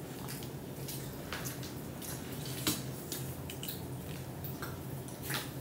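People eating a seafood boil by hand at a table: scattered wet smacks and small clicks of tongs and dishes, over a low steady hum.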